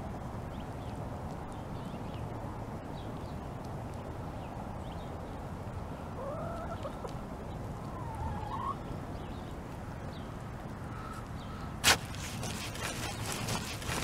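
Outdoor ground ambience over wood-chip mulch, with a few bird calls about halfway through. Near the end a sharp knock, then a run of crackling and crunching as a garden fork is pushed into the mulch and soil.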